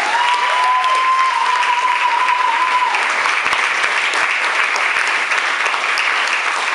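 Audience applauding steadily after a spoken-word performance, with one long held note from the crowd over the first three seconds.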